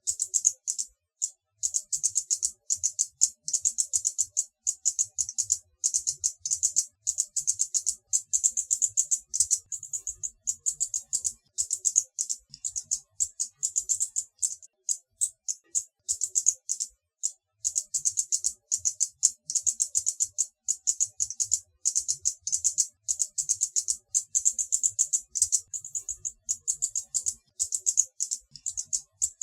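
Hummingbird's high-pitched chittering: rapid, dry chips many times a second, in runs broken by short pauses.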